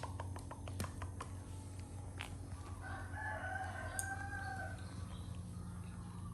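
A long bird call, held for about two seconds and starting about three seconds in, after a few light clicks.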